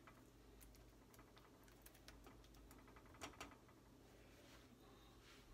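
Near silence: quiet room tone with a steady low hum and a few faint clicks and taps, the clearest a little over three seconds in.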